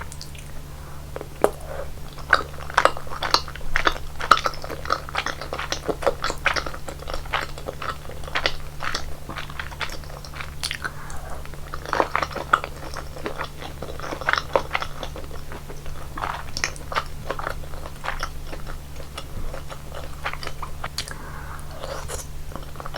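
Close-miked chewing and biting of rosé tteokbokki rice cakes in a thick cream sauce: many irregular short, sharp mouth clicks and smacks, over a steady low hum.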